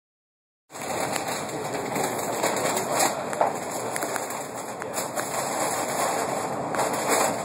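Airport people-mover train running through a tunnel, heard from inside the car: a steady rolling noise with a few short clicks, starting just under a second in.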